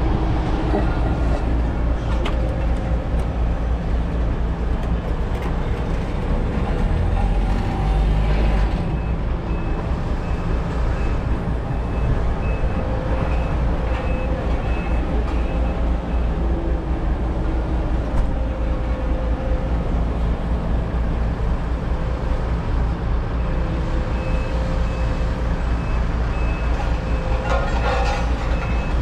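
Heavy diesel construction equipment running steadily with a low rumble, while a back-up alarm beeps in repeated runs partway through and again near the end.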